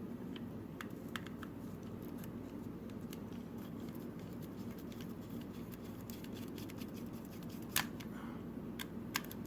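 Small Phillips screwdriver backing a tiny screw out of a plastic computer mouse: faint, scattered clicks and scrapes over a steady low hum, with a sharper click about three-quarters of the way through.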